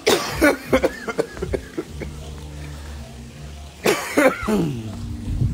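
A man coughing: a fit of several hard coughs in the first second and a half, then another cough about four seconds in.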